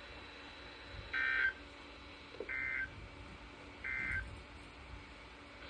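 Emergency Alert System end-of-message signal: three short bursts of SAME digital data tones, about a second and a half apart, marking the end of the severe thunderstorm warning.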